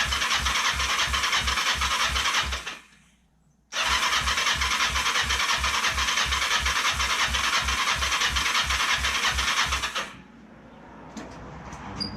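Kawasaki Ninja 500's electric starter cranking the parallel-twin engine, which turns over with an even rhythm of about four compression pulses a second but never fires. Cranking stops briefly about three seconds in, runs again for about six seconds, then stops. It is a crank-no-start: the bike has some fuel, but the owner is unsure it is using any.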